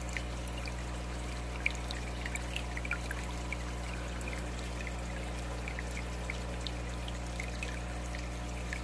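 Aquarium water trickling steadily, with small scattered droplet plinks, over a steady low hum.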